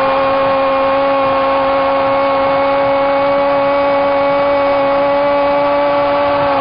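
Football commentator's long, held goal cry ("goool"): one loud, high, unbroken shout of a single vowel, over the steady noise of the stadium crowd.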